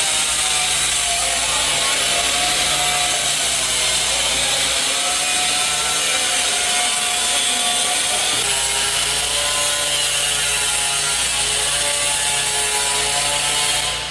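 Power tool cutting metal, running continuously with a harsh hiss and a whine whose pitch wavers under load. It stops suddenly near the end.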